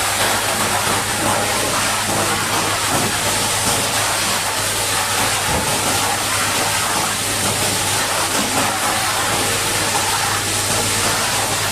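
High-pressure water jet spraying mud off a bulldozer in a steady, unbroken hiss, over a steady low hum.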